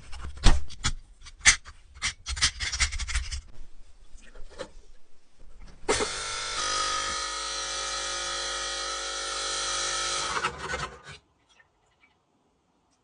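Tool work on a small metal toy truck: irregular scraping and clicking strokes for the first few seconds, then a small power tool running steadily for about five seconds before it stops.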